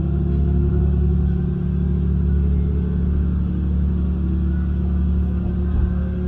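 Train running noise heard from inside the cabin: a steady low drone with pitched tones that climb slowly as the railcar accelerates away from a station.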